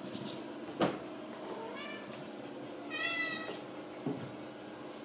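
Ragdoll cat meowing: a short rising meow about two seconds in and a longer, level one about three seconds in. A sharp knock about a second in is the loudest sound.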